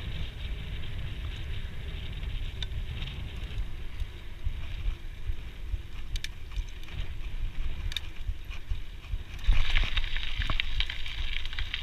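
Scott Genius mountain bike rolling along a wooden plank boardwalk: tyre noise and drivetrain rattle with a few sharp clicks, under wind rumble on the microphone. About nine and a half seconds in the noise gets louder as the tyres run onto gravel.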